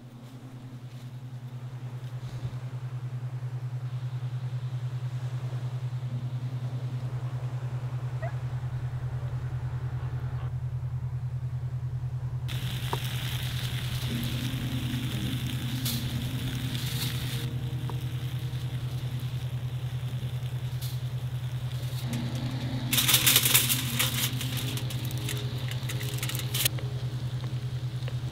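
A steady low hum fades in over the first few seconds. From about halfway a campfire crackles and hisses under foil-wrapped food on a wire grill, and near the end aluminium foil crinkles loudly for a moment.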